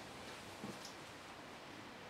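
Caulking gun squeezed to lay a bead of sealant: a soft knock and a light click a little under a second in, over a faint steady hiss.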